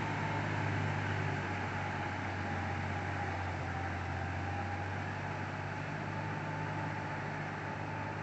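Sonalika DI 740 III tractor's diesel engine running steadily under load, driving a rotavator through puddled paddy mud, with a faint steady whine above the engine note.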